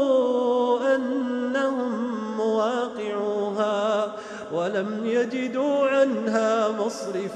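A man's voice reciting the Quran in slow, melodic tajwid style, holding long ornamented notes. There is a short break about four seconds in, then a new phrase that opens with a rising glide.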